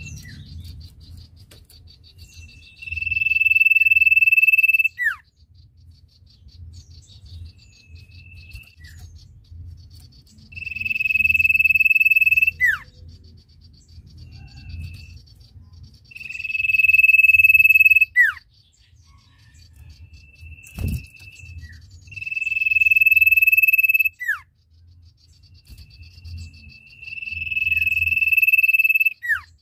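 Caged common iora (cipoh) singing its long drawn-out 'ngesir' call: five held high whistles of about two seconds each, each ending in a quick downward flick, repeated every five to six seconds. A faint steady insect-like trilling runs underneath.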